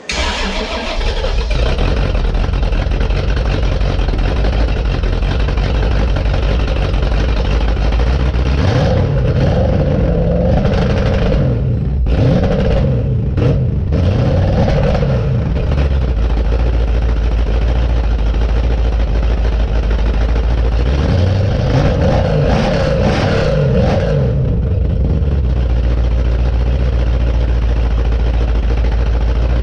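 Built 1975 Chevy 400 small-block V8 with a 3/4 race cam, running through Black Widow Venom 250 mufflers: it fires up and runs loud and steady, then is revved twice, held up for several seconds each time, around 9 to 16 seconds in and again around 21 to 24 seconds in, the first run-up broken by a couple of short cut-outs.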